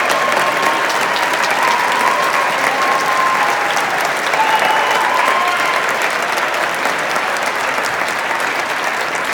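Audience applauding steadily, with a few voices calling out over it in the first half.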